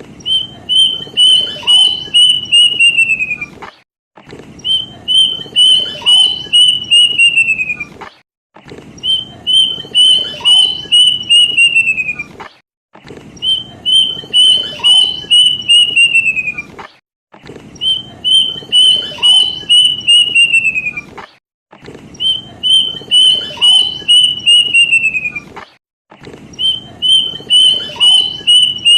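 Kedasih (plaintive cuckoo) song repeating as a lure call: a run of about ten short, clear whistled notes on one pitch that slide downward at the end. The phrase comes again roughly every four seconds, seven times.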